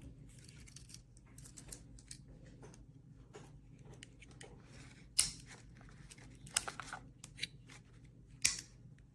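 Close-up handling noises: light scraping and small ticks, with three sharp clicks about five, six and a half, and eight and a half seconds in, the first the loudest.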